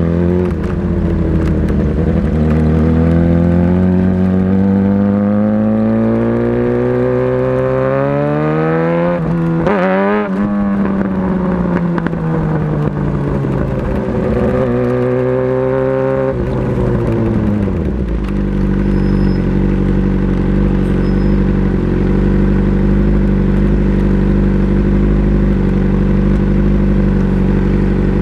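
Motorcycle engine pulling up in pitch under throttle, with a short break and dip about ten seconds in like a gear change, rising again, then easing off. From about eighteen seconds in it runs at a steady, unchanging speed.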